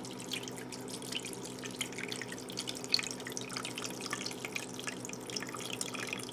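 Chicken broth pouring from a carton into a stainless steel Instant Pot inner pot, a steady trickle with small irregular splashes as it runs over a raw turkey.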